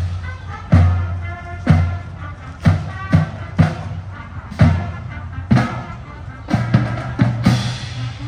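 Music with a steady drum beat, about one beat a second, under a melody.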